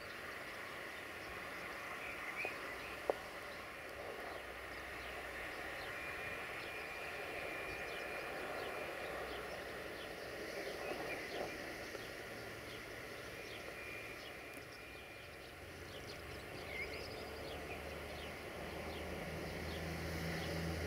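Outdoor background with birds chirping and a faint low rumble underneath, and a single sharp click about three seconds in.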